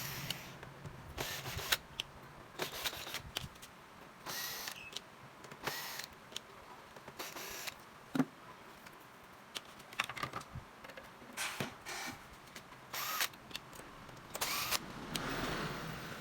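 Irregular clicks and short scrapes of hand tools and metal or plastic parts being handled, a dozen or so scattered knocks with quiet between them.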